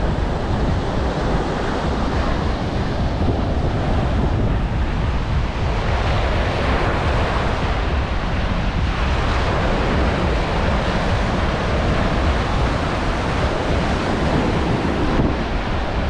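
Small ocean waves breaking and washing up the sand, the hiss swelling and fading every few seconds, with wind buffeting the microphone.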